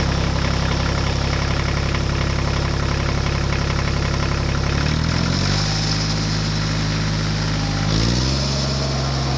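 Tractor engine idling with a steady low beat. Its pitch steps up about five seconds in and again about eight seconds in.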